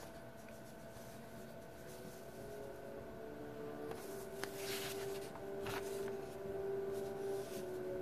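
Pages of an old comic book being turned by hand, with a few short paper rustles about halfway through, over faint background music with held notes.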